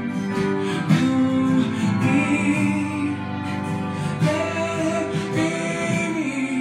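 Background music: a song with singing over guitar accompaniment.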